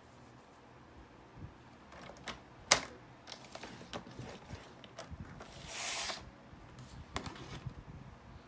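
Cardstock being scored on a paper trimmer: scattered clicks and knocks as the scoring blade carriage is set and run along the track, the loudest a sharp click a little under three seconds in, and a rustling swish of cardstock about six seconds in.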